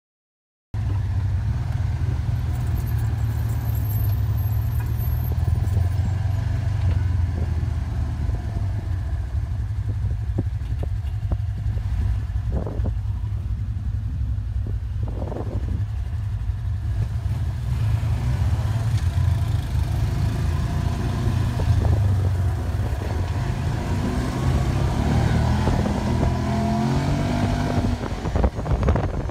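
Side-by-side UTV engine running while driving on a paved road, a steady low drone heard from inside the cab. Near the end the engine note climbs as it speeds up.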